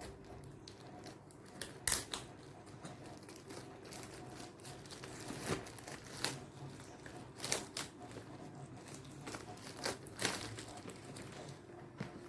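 Plastic packaging cover being handled and pulled off, crinkling and tearing in irregular rustles with several sharper crackles.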